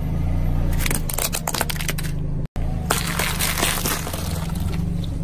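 A car tyre slowly rolling over small objects and crushing them with crackling and snapping, over the car engine's steady low hum. There are two bursts of crushing, split by a brief dropout midway: first a toy car in front of the tyre, then soft colourful crushable items.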